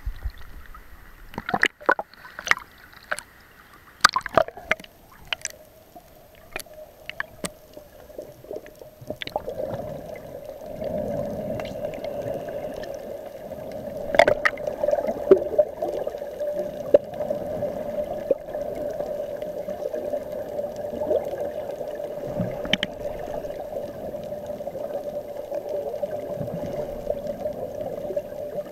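Underwater sound picked up through an action camera's waterproof housing while snorkeling. Water gurgles and sloshes, with sharp clicks and knocks through the first several seconds, then a steady hum under a low wash of water from about ten seconds in.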